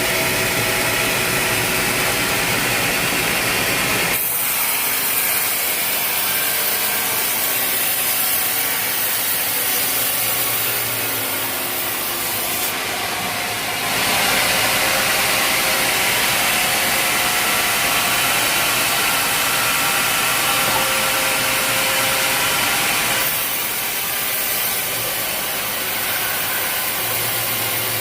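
Sawmill running, its saw cutting through a log, with a steady engine hum underneath. The sound shifts abruptly a few times: about 4 seconds in, around the middle, and near the end.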